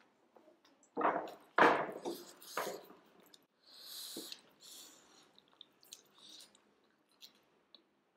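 Close-up eating sounds of momo dumplings being chewed, with a few louder mouth noises between one and three seconds in and small scattered clicks later on.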